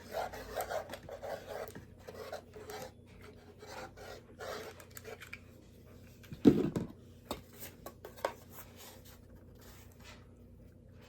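Cardboard boxes being handled and worked with a hot glue gun: a run of short rubbing and scraping rustles, with one louder thump about six and a half seconds in.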